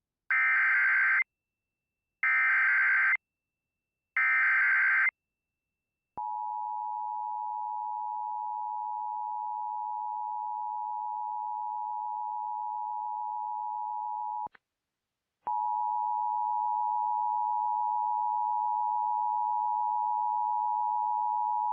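Emergency Alert System tones from a Sage Endec: three screeching SAME data header bursts of about a second each, then the steady two-tone EAS attention signal (853 and 960 Hz). The attention signal drops out for about a second midway and then resumes. Together they mark the start of a new tornado warning.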